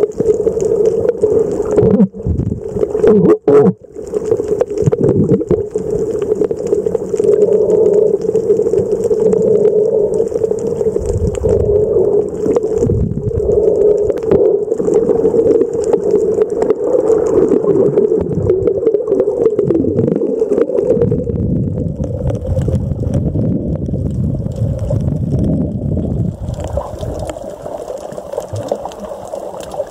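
Water gurgling and sloshing with a steady drone underneath, cut by brief sharp dropouts about two and three and a half seconds in.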